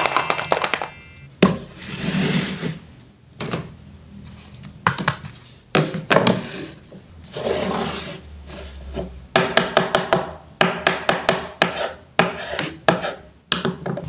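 Wooden toy knife and wooden play food being cut on a board: rasping scrapes of wood on wood, mixed with sharp wooden taps and knocks, with a quick run of clicks in the second half.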